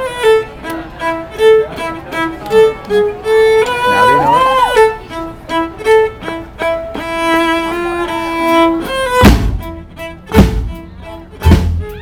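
Fiddle playing a melody line of short and held notes, with a swooping slide in pitch about four seconds in. About nine seconds in, the drum kit and the rest of the band come in with loud hits.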